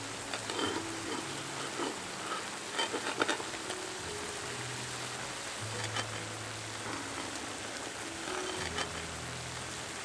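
Tomatoes and zucchini sizzling and simmering in a pan of oil and juices: a steady fine crackle, with sharper pops clustered in the first few seconds. Soft background music plays under it.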